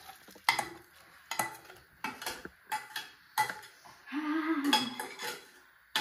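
Metal spoon scraping and clinking against a pan as cooked chicken masala is moved into a pressure cooker, a scrape or clink every half second or so. A short pitched sound about four seconds in is the loudest moment.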